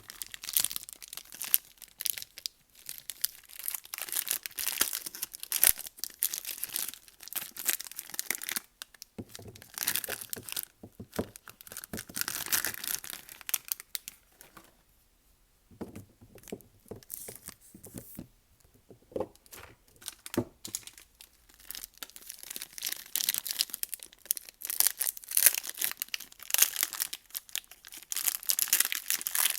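Soap wrapping being torn open and crinkled by hand, in runs of crackly rustling with a short pause about halfway through.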